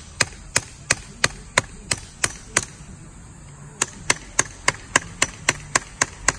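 Small hammer striking in quick, regular sharp blows, about three a second, pausing for about a second in the middle before carrying on.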